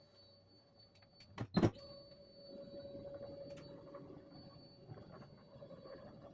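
Onefinity CNC's stepper motors slowly driving the machine through its homing sequence: two sharp clicks about a second and a half in, then a faint, steady motor whine.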